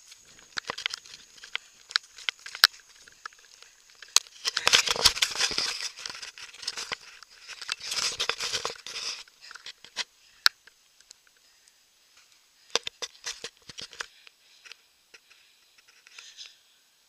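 Rustling and crackling of grass and brush as someone pushes through it with the camera, with many sharp handling clicks. Two louder stretches of rustling come about four and eight seconds in; after that it thins to scattered clicks and faint rustles.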